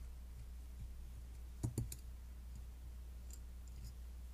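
Small metal parts of a Zabala double-barrel shotgun's action clicking as they are handled and fitted by hand: a quick cluster of two or three sharp clicks about one and a half seconds in, then a few fainter ticks, over a low steady hum.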